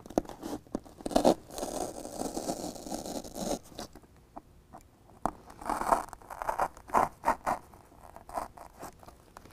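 BedRug carpet-faced foam liner panel being cut with a utility knife and shifted against the truck bed wall. A scraping rustle lasts a couple of seconds, then comes a quick series of short scuffs and crunches.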